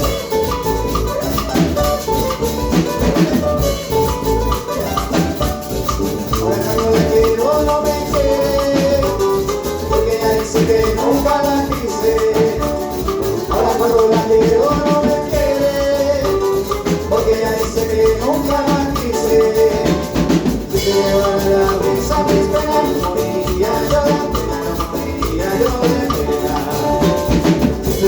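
Instrumental passage of a Latin American song: a melodic lead line moving over steady percussion, with no singing.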